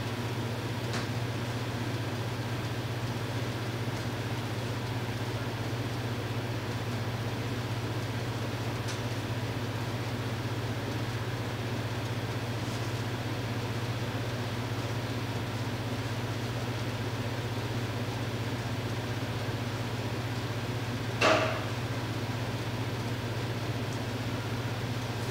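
Steady low mechanical hum of kitchen equipment with a faint hiss over it. One short, louder clink-like sound cuts in about 21 seconds in.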